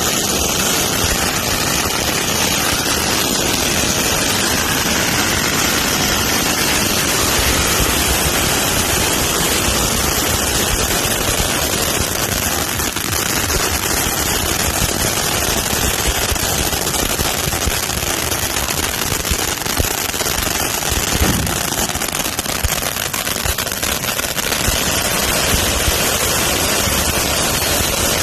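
Many safe-and-sane ground fireworks going off at once: a dense, unbroken crackling hiss packed with rapid small pops.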